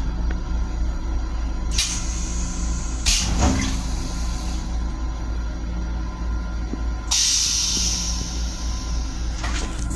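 Flush cycle of an M7 railcar toilet: short hissing spurts into the stainless-steel bowl, then a longer hiss lasting a couple of seconds, starting about seven seconds in, all over the steady low rumble of the moving train.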